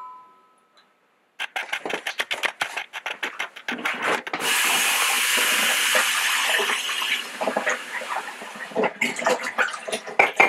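Melitta Gevalia BCM-4C four-cup drip coffeemaker still brewing, sputtering and gurgling as it pushes hot water through, with a steady hiss from about four and a half to nine seconds in.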